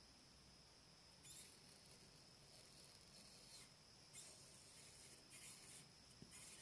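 Faint, brief bursts of crackling hiss, five in all, from two carbon rods fed by a 12 V AGM battery sparking as they touch and part, over a steady faint high whine.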